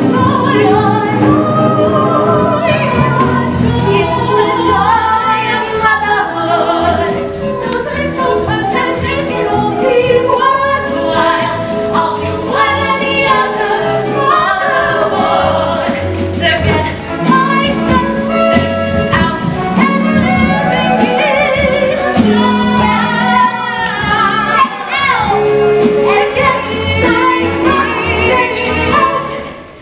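Music: a group of women singing a musical-theatre song together, several voices at once.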